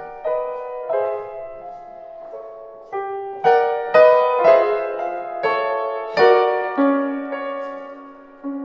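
Grand piano played slowly, a series of struck chords that ring on, coming about two a second in the middle and spacing out near the end.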